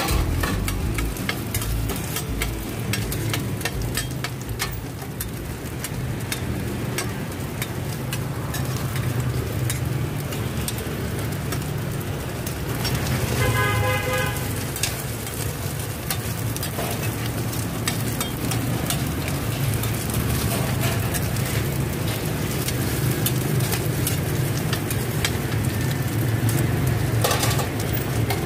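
Metal spatula and ladle scraping and clinking against a flat iron frying pan as cubes of rice-flour cake fry, with a steady low rumble of street traffic. A vehicle horn honks once, about halfway through.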